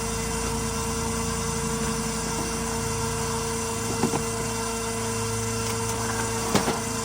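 Engine running steadily, with a constant whine and a few faint clicks.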